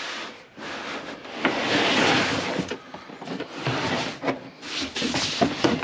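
A folded plastic kayak dragged out of a large cardboard box: plastic and cardboard rubbing and sliding against each other, with one long slide about a second and a half in and a few light knocks near the end.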